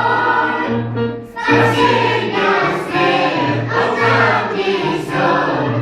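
A choir singing, with a brief break between phrases about a second in and low notes repeating beneath the voices.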